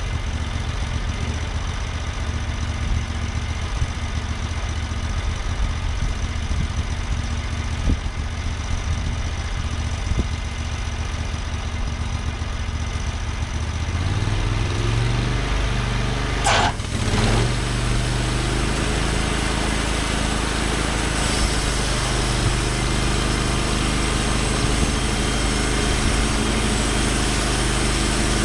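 TimberKing portable sawmill's engine running steadily. About fourteen seconds in it speeds up over a couple of seconds, with a brief squeal, then runs on at the higher speed.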